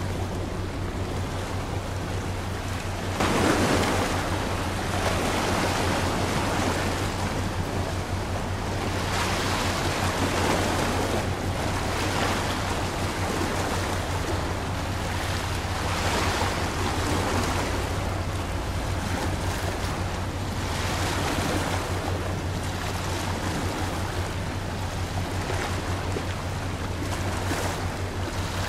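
Water washing in waves, with wind gusting on the microphone in swells that rise and fall, over a steady low hum.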